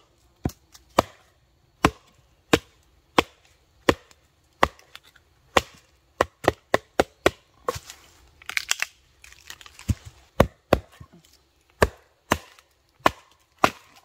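Wooden baton striking the spine of a carbon-steel tracker knife, driving it through seasoned white oak to split kindling: a long series of sharp knocks, roughly one or two a second.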